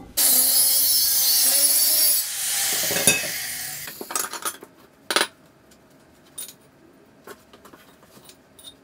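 Steel square tubing scraping and grating as it is dragged across metal and the concrete floor. The scraping is loudest for about the first two seconds and fades out by about four seconds in. A few light metal clanks follow as the pieces are set down.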